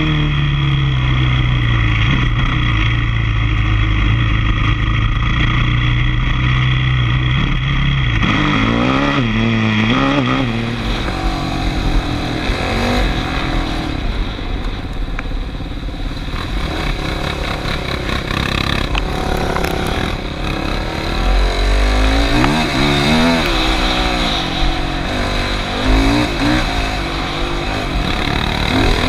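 ATV engine running under varying throttle on a trail ride. Its pitch drops at first and holds steady, then the revs rise and fall several times through the second half.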